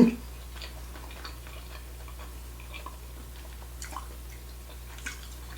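A short thump right at the start, then faint, irregular small clicks of someone chewing sushi rolls, over a low steady hum.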